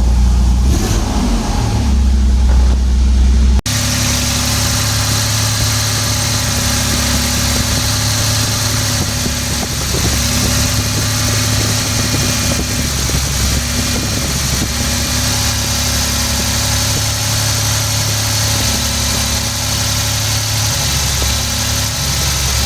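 A 1994 Toyota T100 pickup's engine idling steadily during a misfire check, with an abrupt break about three and a half seconds in.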